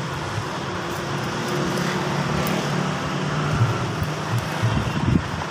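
Steady rumble of road traffic in the background, with a few faint clicks as a screwdriver loosens the screws of a plastic extension board.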